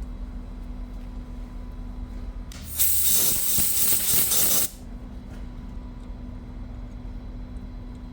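A short blast of compressed air lasting about two seconds, loud and hissing, over the steady hum of a running lathe.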